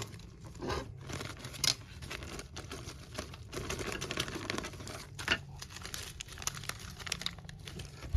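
Packaging being handled and opened by hand: continuous crinkling and tearing with irregular crackles, and a couple of sharper clicks.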